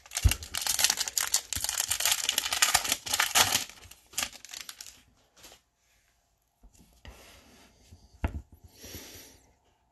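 Foil wrapper of a 2020 Bowman baseball card pack being torn open and crinkled, loud and dense for the first three or four seconds. It trails off into quieter rustling of the cards being handled, with a single knock about eight seconds in.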